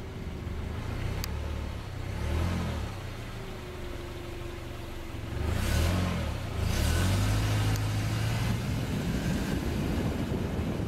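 A car engine running as the car climbs a road, its pitch rising and falling as it accelerates and eases off. About halfway through, a louder rushing noise of tyres and wind comes in.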